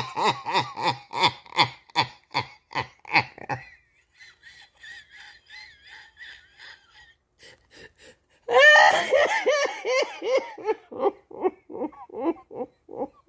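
A woman laughing hard in rapid, rhythmic 'ha-ha' bursts, which fade into a faint, high-pitched wheezing laugh about four seconds in. About eight and a half seconds in she breaks out loudly again into more rhythmic bursts.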